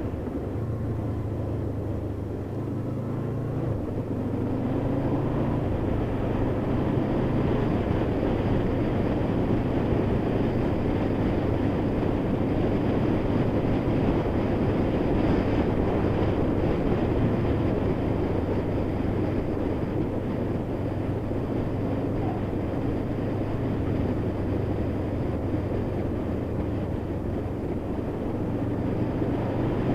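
Honda VFR800's V4 engine running steadily while the motorcycle is ridden, over a constant rush of noise. The engine note shifts between about two and four seconds in.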